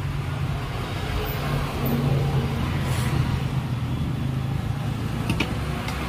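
Steady low drone of a motor vehicle running, swelling slightly a couple of seconds in, with one sharp click near the end.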